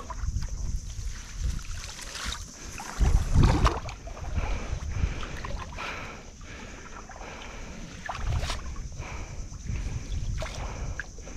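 Water sloshing and splashing in shallow river water as people wade and haul in a fine-mesh drag net, loudest about three seconds in.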